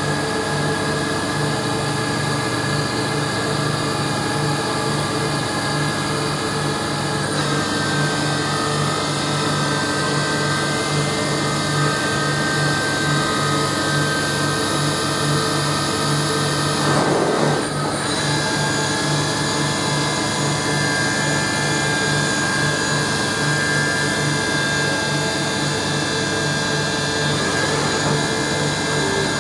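Mazak Nexus HCN 5000 horizontal machining center running, with its spindle head moving but not cutting: a steady mechanical whine of several steady tones, with a low pulsing hum beneath. A brief rush of noise comes about two thirds of the way through.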